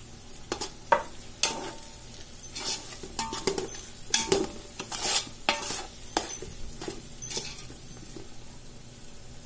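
A steel spoon stirring and scraping round a large metal pot, in repeated uneven strokes, while an onion-tomato masala with freshly added ground spices sizzles as it fries.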